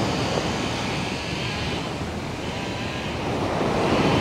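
Ocean surf breaking and washing up a sandy beach, a steady rushing noise that eases a little in the middle and swells again near the end.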